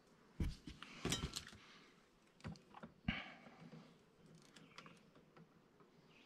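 Hands working on dash wiring: a few sharp clicks and clinks as wires and connectors are handled and a pair of wire crimpers is picked up, the loudest in the first three seconds or so, then lighter ticking and rustling.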